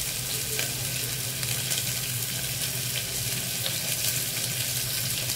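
Sliced onions frying in hot oil in an aluminium pressure cooker pan: a steady sizzling hiss with fine crackles as they sauté down, the onion stage of a mutton curry base.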